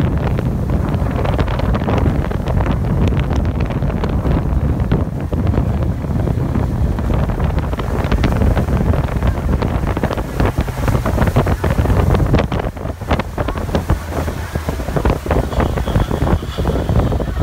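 Heavy wind buffeting the microphone aboard a Boston Whaler Montauk 19 centre-console boat under way, a loud low rumble broken by many short, irregular knocks.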